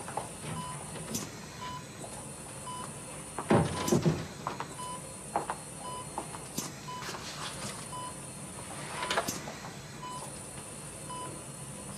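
Hospital bedside patient monitor beeping in a steady rhythm of short high beeps, a little faster than once a second, with a few louder rushes of air from the patient's ventilator, the loudest about three and a half seconds in.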